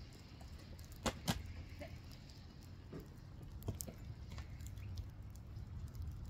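Faint dog whines over a steady low rumble, with two sharp clicks about a second in.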